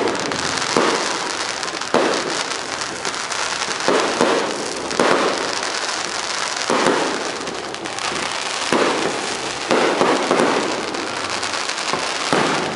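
Fireworks display: aerial shells bursting about eight times, one every one to two seconds. Each bang is followed by dense crackling from the glittering stars.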